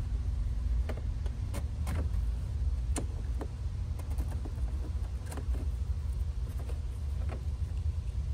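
Scattered sharp clicks and small plastic rattles from wiring-harness plugs being handled and connected at a pickup's factory radio module, over a steady low hum.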